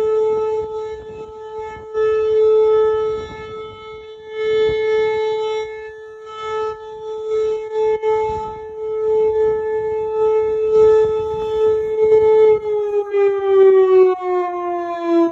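Whelen Vortex R4 rotating outdoor warning siren sounding a steady tone, its loudness swelling and fading every few seconds as the head turns. About three seconds before the end the pitch starts to fall as the siren winds down.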